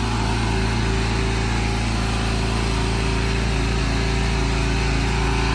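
Gas-engine pressure washer running steadily under load, with a continuous hiss of spray from the wand. This is the chemical-application pass, with detergent drawn in through the downstream injector.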